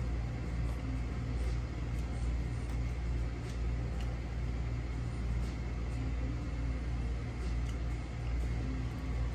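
Steady low rumble that runs without change, with faint small clicks now and then.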